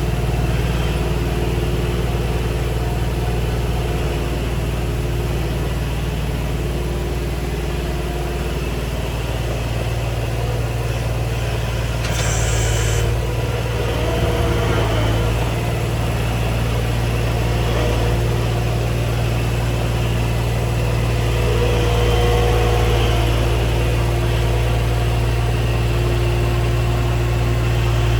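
New Holland skid steer's diesel engine running steadily under load, with a faint whine that shifts in pitch now and then as the grapple works a log. A brief hiss comes about twelve seconds in.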